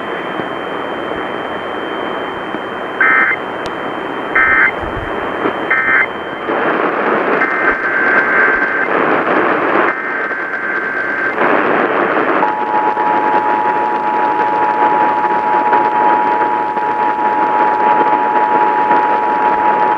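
Emergency Alert System tones over weather-radio static. Three short data bursts close the previous alert. Two longer warbling header bursts follow for the next alert, and about twelve seconds in the steady two-tone EAS attention signal starts and holds.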